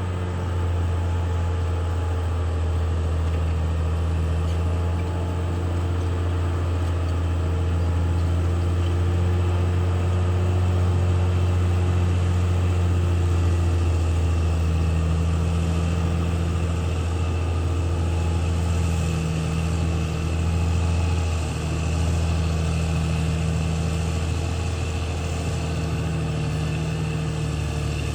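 Caterpillar D6R XL bulldozer's diesel engine running steadily, a deep even hum that wavers slightly about two-thirds of the way through.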